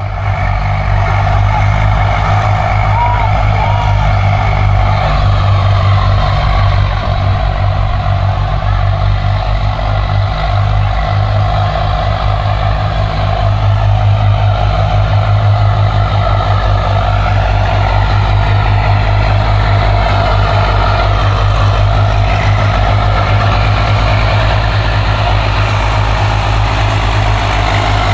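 Swaraj 735 diesel tractor engines running steadily, a loud low drone, while towing a tractor stuck in wet sand. Voices of people can be heard underneath.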